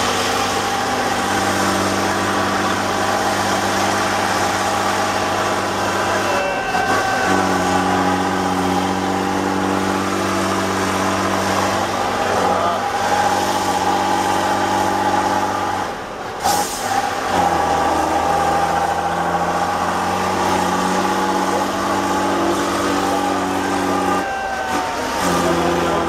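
Tatra 813 eight-wheel-drive truck's diesel engine running under heavy load on a steep dirt climb, black smoke pouring out. It holds steady revs that shift up or down in steps a few times, and a short hiss comes about sixteen seconds in.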